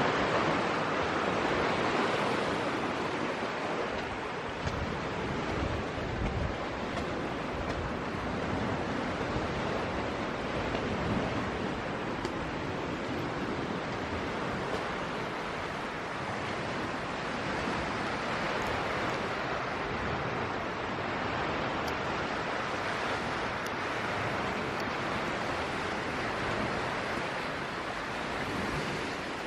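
Steady rushing noise without pauses, a little louder in the first few seconds, of the kind made by surf, wind or heavy rain.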